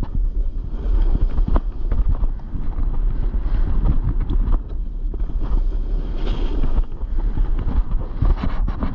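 Wind buffeting a GoPro's microphone while a snowboard slides and turns down the slope, its edge scraping irregularly over the snow.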